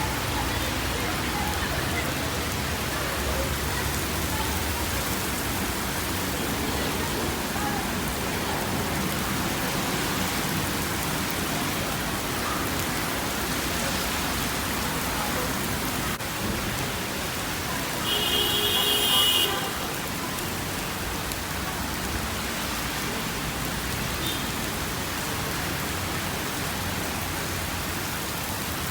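Heavy rain falling steadily as an even hiss. About two-thirds of the way through, a brief high-pitched tone sounds for about a second and a half over it.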